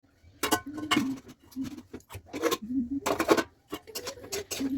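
Irregular clicking and clattering of a utensil against cookware, with quick sharp knocks at uneven intervals.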